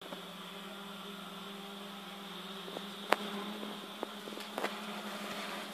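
A steady low buzzing hum, with a few sharp clicks on top, the loudest about three seconds in.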